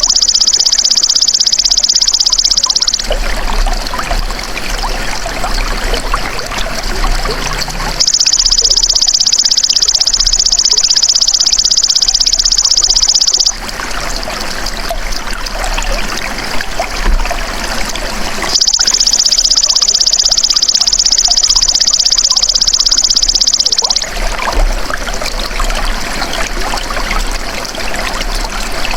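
Belalang emas insect singing a loud, high, rapidly pulsed buzzing trill in bouts of about five seconds, three and a half bouts in all. In the gaps between bouts, trickling water is heard.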